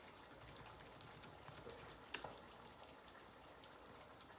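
Near silence with faint crackling pops from a pan of lamb Bolognese simmering on a gas stove, and one soft click about two seconds in.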